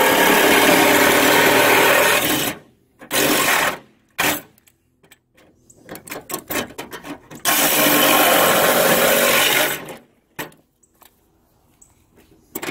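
Reciprocating saw cutting through the sheet-steel front fender of a Jeep Cherokee XJ, running in bursts: a cut of about three seconds, a short one, and another of about two seconds, with light taps and rattles between them.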